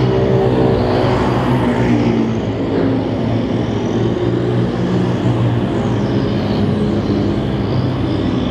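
Small-engine mini sprint race cars running on a dirt oval, their engines rising and falling in pitch again and again as they rev through the turns, with background music underneath.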